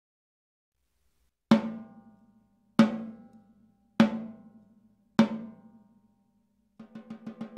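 Sonor Select Force 14x6.5 snare drum with wood hoops struck four single times, about a second apart, each hit ringing out with a clear pitched tone before fading. Near the end, quick even strokes begin and build louder into a roll.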